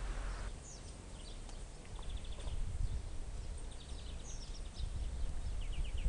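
Spotted flycatchers giving short, thin high calls and quick ticking runs from the nest, over a steady low rumble of wind on the microphone. A hiss cuts off about half a second in.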